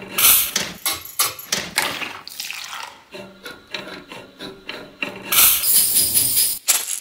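Household objects played as percussion in ensemble: a quick rhythmic pattern of clicks and knocks, joined from about five seconds in by a loud rushing rattle of dried grains shaken in a glass jar.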